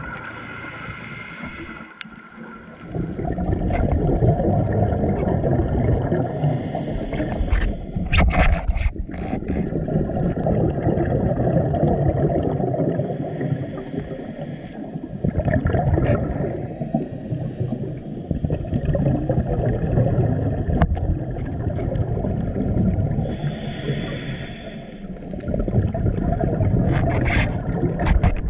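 Scuba diver breathing through a regulator, heard underwater: long stretches of exhaled bubbles rushing past the camera, broken by short pauses for each breath in, every five to six seconds.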